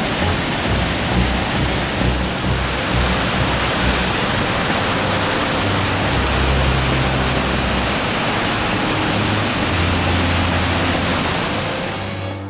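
Waterfall in spring flood: a torrent of whitewater pouring through a rock gorge, a loud steady rush of water that cuts off abruptly at the end. Low sustained music notes run faintly beneath it.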